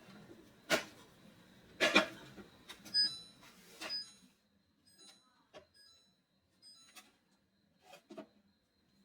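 Plastic storage containers and baskets being handled and set down in a refrigerator: a series of sharp clacks and knocks, loudest in the first three seconds, with a few short high beeps in between.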